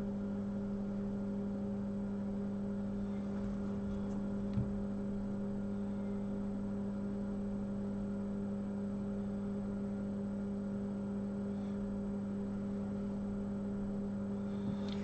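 Steady electrical hum from running microsoldering bench equipment such as the preheater, one low tone with fainter higher overtones. There is a single faint tick about four and a half seconds in.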